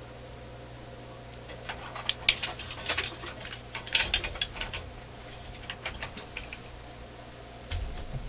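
Quick runs of small, sharp clicks and taps, like tools and parts being handled on a workbench, over a steady low hum.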